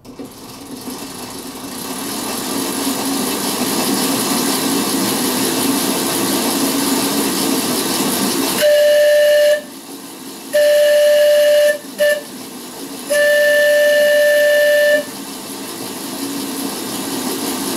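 Steam-locomotive sounds from an electric Porter 0-4-0 model locomotive: a steady hiss builds over the first few seconds. Then a single-note steam whistle blows four times, the third very short and the last the longest, and the hiss carries on after it.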